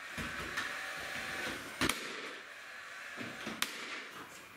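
Light knocks and two sharp clicks from a cordless finish nailer being handled and fired into crown molding, the loudest click about two seconds in.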